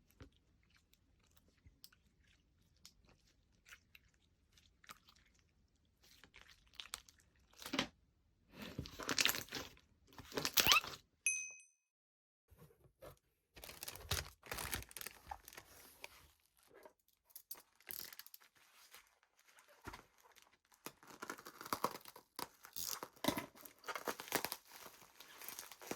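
Slime being squished, stretched and pressed by hand, giving irregular crackling and crunching sounds. The loudest bursts come in the middle, broken by a short silent gap, before the crackling picks up again.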